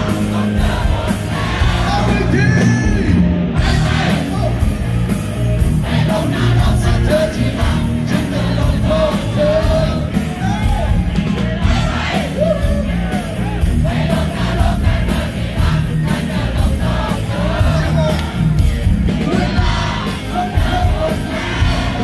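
Live rock band playing through a large PA, with electric guitar, bass guitar and a drum kit under a male lead singer.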